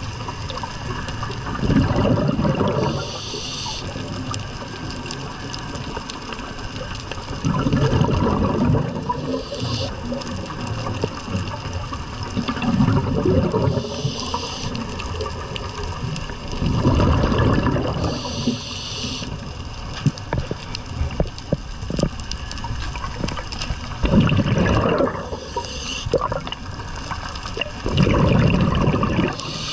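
Scuba diver's regulator underwater: about six breaths, each a rush of exhaled bubbles followed by a short hiss as the next breath is drawn through the demand valve, roughly every five seconds. Faint scattered clicks under the breathing.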